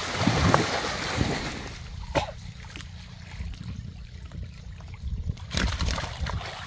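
Muddy water splashing and sloshing around men wading waist-deep and groping underwater for fish by hand. There is a sharp splash about two seconds in and another near the end.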